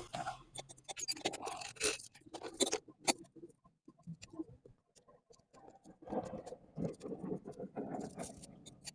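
Irregular clicks and scraping of metal bicycle parts and tools being handled while an old rear derailleur is fitted, in two busy spells with a quieter gap between.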